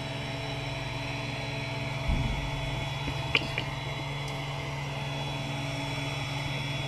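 Steady hum of a powered-up 3D printer's electronics: power supply and cooling fans running. A low bump about two seconds in and two faint ticks about a second later.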